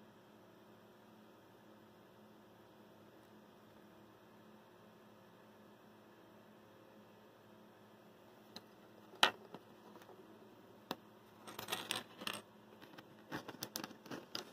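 Faint steady hum, then from about nine seconds in a sharp click followed by clusters of light clicks and clacks: a small circuit board and battery being handled and set down on a wooden table.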